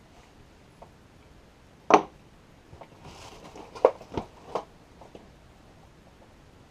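Metal clicks and knocks of a folding hex key set turning a bolt on an ice auger. There is one sharp click just before two seconds in, then a brief scuffle and three or four more clicks over the next couple of seconds.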